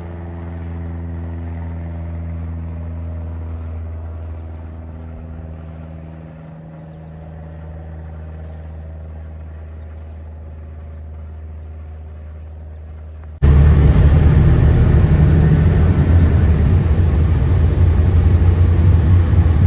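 Steady low drone of aircraft engines with a fixed pitched hum. About 13 seconds in, after a cut, it gives way to a much louder, rougher engine rumble.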